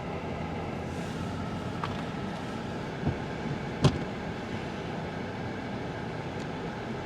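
Steady background rumble and hum, with a small click about three seconds in and a single sharp knock just before four seconds.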